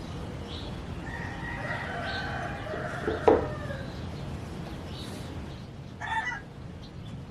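A rooster crowing, one long call of about two and a half seconds, cut across near its end by a sharp knock. A short call follows near the end.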